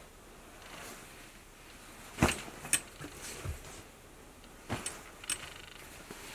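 Handling noise: a few sharp clicks and knocks, with a low thump between them, over faint hiss, as the jackets and hangers are moved about.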